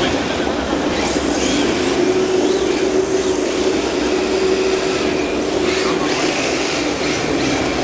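Steady din of a large indoor hall with electric RC drift cars driving, their motors giving short rising and falling whines over the background noise.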